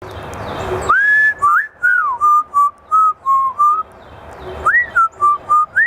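Parrot whistling a short tune: a rising note that is held, then a quick run of short notes, and after a pause the same phrase starting again near the end.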